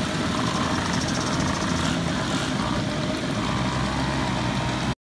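Many small two-stroke moped engines running together at once, a dense steady engine noise that cuts off suddenly near the end.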